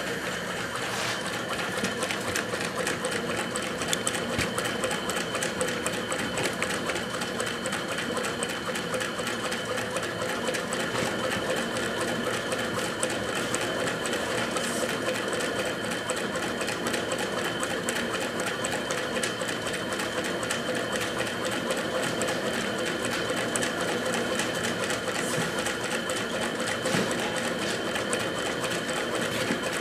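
Homemade Stirling engine running steadily, working a shaker-flashlight magnet-and-coil generator; its moving parts make an even, rapid mechanical clatter.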